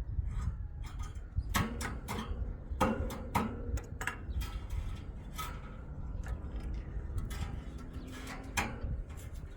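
Irregular sharp knocks and clicks, a few per second, some with a brief ringing tone, over a steady low rumble.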